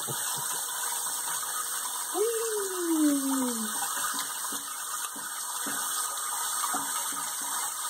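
Kitchen faucet running steadily into a sink bath, with light splashing of water. About two seconds in, a single voice sound slides down in pitch over a second and a half.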